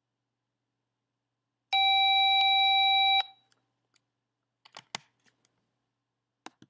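A steady electronic beep: one tone held for about a second and a half, followed by a few faint clicks.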